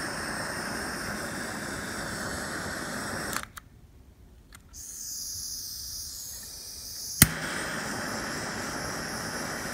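Handheld torch flame blowing with a steady rushing hiss over wet acrylic paint; about three and a half seconds in it cuts off with a click. After a fainter, higher hiss there is a sharp click a little past seven seconds, and the flame runs again.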